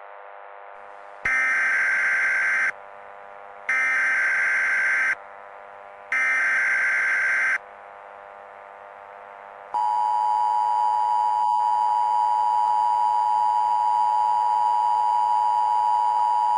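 Emergency Alert System SAME header: three short bursts of screeching digital data tones, each about a second and a half long with a pause between. About ten seconds in, the steady two-tone EAS attention signal starts and holds, the alarm that warns an emergency message follows.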